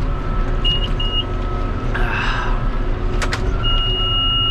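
Tractor engine running steadily under load while the round baler's in-cab monitor beeps: two short beeps about a second in, then one long beep starting past three and a half seconds. The alarm comes from a broken net-wrap sensor on the baler that falsely reports the net. A brief rustle and a couple of clicks fall in between.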